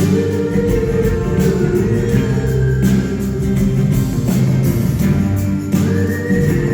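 Live band playing a song loudly, with long held notes over a steady beat.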